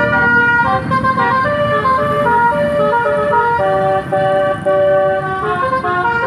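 Basuri telolet multi-tone bus horn playing its tune: a run of held chords that step from pitch to pitch about every half second, over a low engine rumble.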